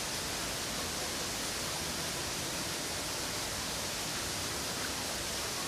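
Steady, even hiss, loudest in the upper range, with no distinct calls, knocks or other events standing out.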